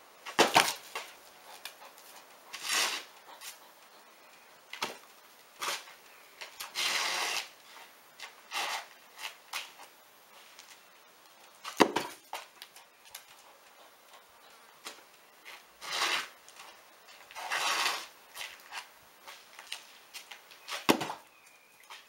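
Soccer ball kicked again and again at a dog that blocks it with her head: sharp thuds of kicks and of the ball striking her, spaced a few seconds apart, with short scraping scuffs between them.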